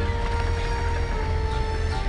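Background music of long held notes that change pitch about a second in and again near the end, over a steady low rumble.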